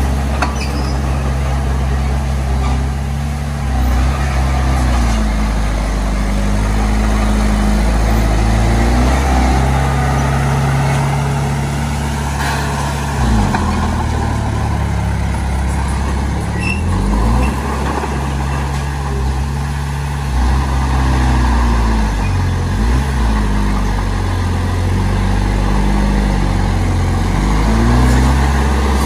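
Heavy diesel engine of earthmoving machinery running steadily under load, its pitch dipping and recovering several times.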